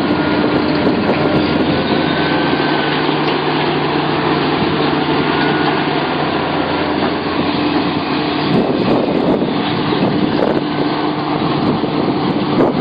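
Sumitomo SH700LHD-5 hydraulic excavator running steadily, with a low engine hum and a higher, slightly wavering whine; a few light clicks come about two-thirds of the way through.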